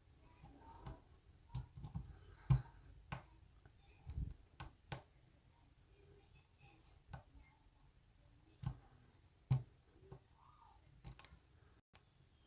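Picking tools working in a Bilock lock: scattered small metallic clicks and taps at irregular intervals, with a few soft handling knocks.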